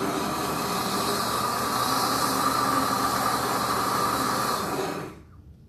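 Pampered Chef Deluxe Cooking Blender running a blending stage of its cooking cycle on hot lemon curd: a loud, steady motor noise that winds down and stops about five seconds in.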